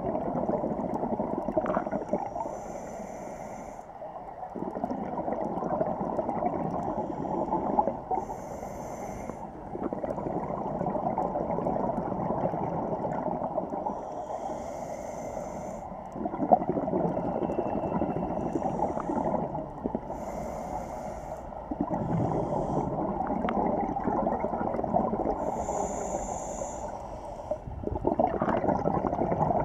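Scuba regulator breathing heard underwater, muffled: slow cycles about every five seconds of air drawn through the demand valve and exhaled bubbles rushing and gurgling away.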